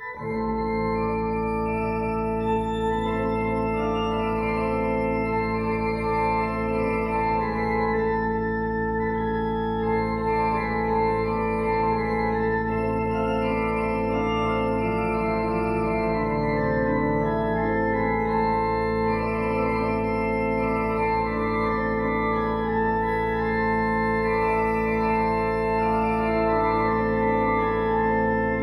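1821 Schiörlin mechanical pipe organ playing a Baroque French Christmas noël. Long-held low notes sound under a moving upper melody.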